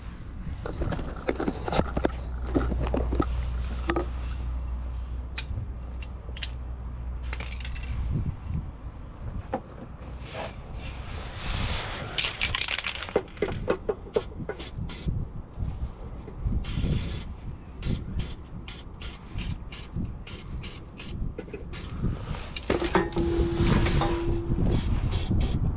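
Aerosol can of aluminium zinc spray in use on bare steel around freshly drilled holes: short hisses of spray, and runs of the can being shaken with its mixing ball rattling about three times a second.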